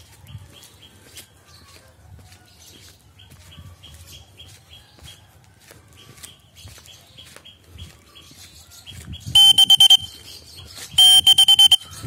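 Baby lovebird calling in quick shrill chirps, faint at first, then two loud bursts of rapid chirping near the end.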